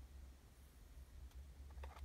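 Near silence: room tone with a low steady hum and a couple of faint clicks from the hand holding the box.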